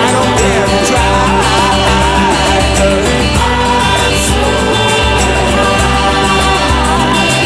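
Acoustic psychedelic pop band recording in a stretch with no lyrics: acoustic guitar, bass and world percussion keep a steady groove under a lead melody line that bends in pitch.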